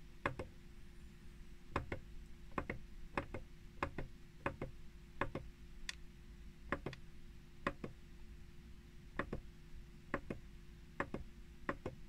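Small push buttons on an SD cassette replacement unit clicking, pressed one after another at an uneven pace of about one or two a second, as its file list is scrolled. A faint steady hum lies underneath.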